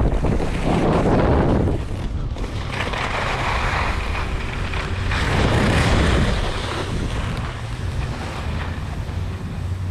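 Wind noise on the microphone during a fast ski descent, with the hiss and scrape of Fischer RC4 WorldCup GS skis on groomed snow. It is loudest in the first couple of seconds and again around five to six seconds in.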